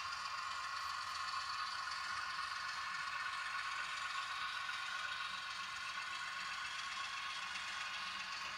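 HO scale model diesel locomotive pushing a short train of freight cars along the track, giving a steady running and rolling sound.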